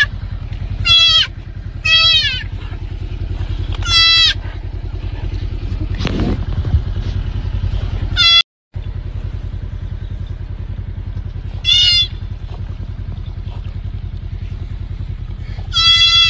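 Fawn bleating in short, high-pitched cries, about six times, over the steady low drone of an idling vehicle engine.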